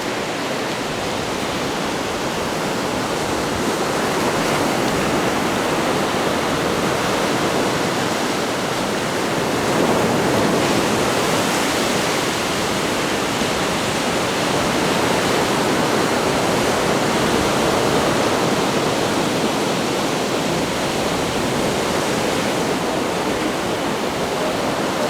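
Ocean surf breaking and rushing up a beach: a steady wash of waves that swells a little about ten seconds in.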